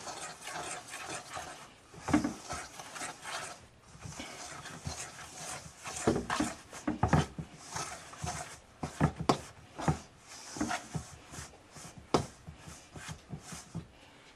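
Hands mixing and squeezing wet biscuit dough in a glass bowl: irregular rubbing and squishing with scattered knocks against the bowl.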